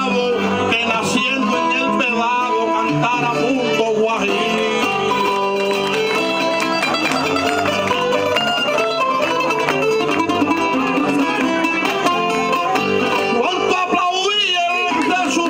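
Cuban laúd and acoustic guitar playing a punto guajiro accompaniment together, plucked strings going on without a break.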